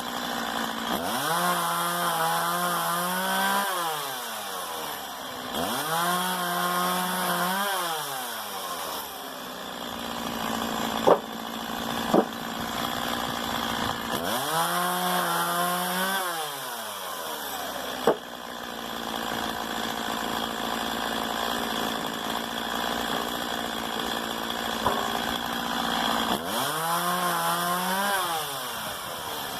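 Stihl MS 170 two-stroke chainsaw revving up to high speed and dropping back to idle four times, about three seconds each time, idling in between. A few sharp clicks are heard during the long idle stretch.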